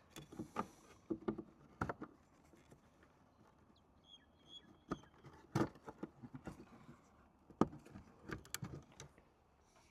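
Scattered light clicks and knocks of plastic parts being handled and pressed together as a new indicator lens is fitted into a van's side mirror housing.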